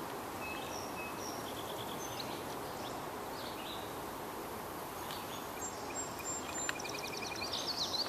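Several songbirds chirping and singing over a steady outdoor hiss: scattered short whistled notes, a couple of quick repeated-note series, and a rapid trill near the end.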